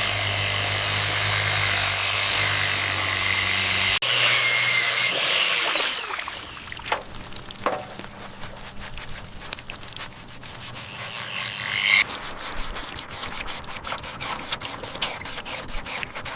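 A power tool running steadily, then a louder stretch, then scraping with scattered light clicks and taps, in abrupt cut-together segments.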